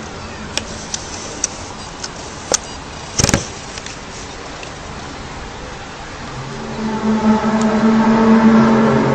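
A steady outdoor rumble with scattered sharp clicks and a louder knock about three seconds in, then a loud, steady droning tone with several overtones swells in about two-thirds of the way through: the trumpet- or brass-like 'strange sky sound'.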